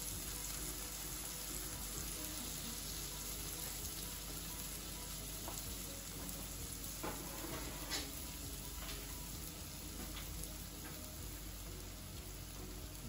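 Chicken burger patties sizzling steadily in melted butter in a frying pan, with a couple of sharper pops about seven and eight seconds in.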